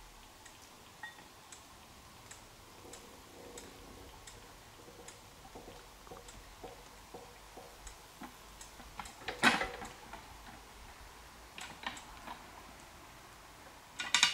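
Faint, irregular mechanical ticks and clicks, with a louder clatter about nine and a half seconds in and a quick run of clicks near the end.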